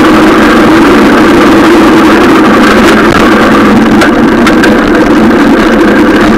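Steady, loud rush of riding noise, wind and tyre noise on a mountain bike's handlebar-mounted action camera, with a few faint clicks in the second half.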